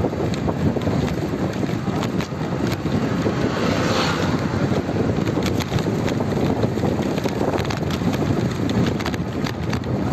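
Wind buffeting the phone's microphone as it moves along a street: a steady, loud rumble with small scattered clicks and a brief hiss about four seconds in.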